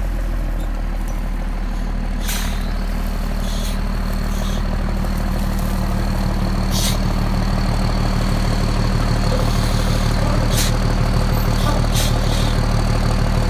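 Diesel engine of a bale squeeze truck idling steadily, growing a little louder toward the end, with a faint high whine and a few brief hisses.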